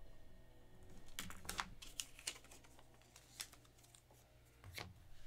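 Faint, scattered light clicks and taps, about a dozen in irregular clusters over a few seconds, with a faint hum of room tone beneath.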